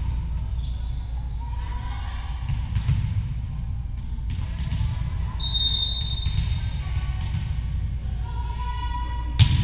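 Volleyball match sounds in a gym: the ball struck a few times, brief high squeaks, and crowd chatter over a steady low hum. A sharp, loud hit near the end as a player serves the ball.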